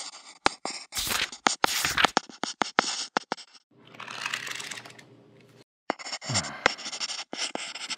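Pencil sketching on paper in quick scratching strokes. Around the middle, sheets of drawing paper are flipped with a rustle, then the rapid scratching resumes.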